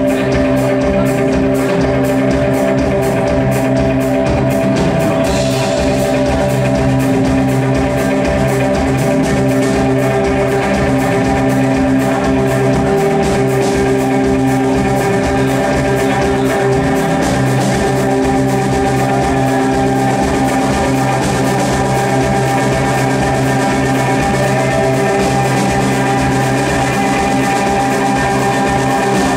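A live rock band playing an instrumental passage on electric bass, two electric guitars and a drum kit: long held notes over steady drumming.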